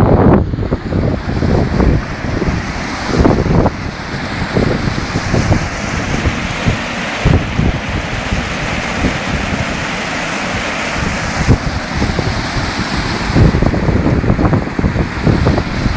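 Muddy floodwater rushing and churning, with wind buffeting the microphone in irregular gusts.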